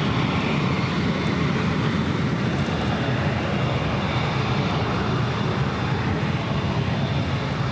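Steady jet aircraft engine noise: a continuous, even rush that does not change in pitch or level.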